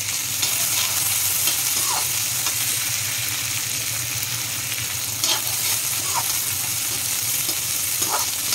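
Chopped onions sizzling steadily in hot oil in a metal kadhai, stirred with a perforated metal spatula that scrapes against the pan a few times.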